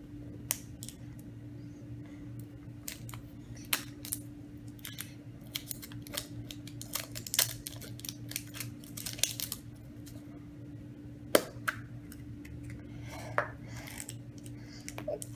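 Plastic Kinder Surprise toy capsule being handled and its clear plastic seal strip peeled off: an irregular string of small crackles and clicks, with one sharp click about eleven seconds in, over a steady low hum.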